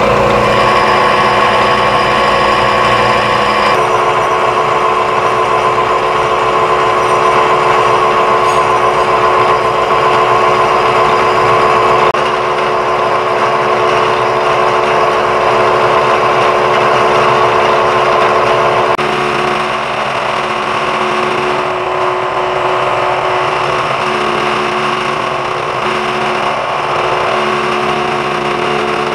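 Milling machine face mill cutting steel, taking a chamfer off the corner of a welded steel part: a steady, loud cutting sound with a ringing tone. It drops a little in level about two-thirds of the way through.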